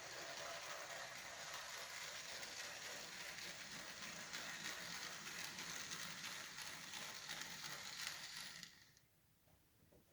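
A pair of Bachmann Spectrum Dash 8 N scale model locomotives running along the track: a steady whirring hiss with a fine crackle of wheels on rail, which falls away suddenly near the end.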